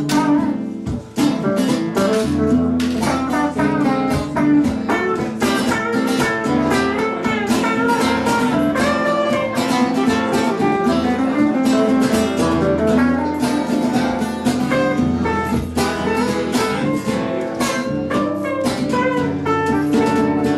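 Instrumental music: a guitar playing a steady stream of plucked notes over a low bass line, with no singing.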